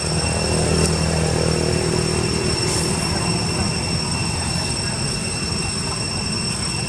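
Low rumble of a motorbike engine, with a pitched hum that is strongest over the first few seconds and then fades, under a steady high-pitched whine of several tones.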